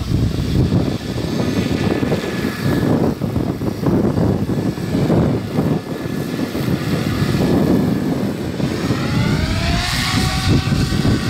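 Goblin radio-controlled 3D helicopter's main rotor spinning up to flight speed, with a loud chopping whoosh as it lifts off and flies low. From about nine seconds in, the motor and rotor whine sweeps up and down in pitch as it manoeuvres.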